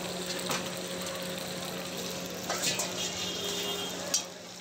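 Chicken pieces frying in hot oil in steel karahi woks over charcoal: a steady sizzle with a low hum beneath it. A few sharp metal clinks of utensils are heard, the loudest near the end.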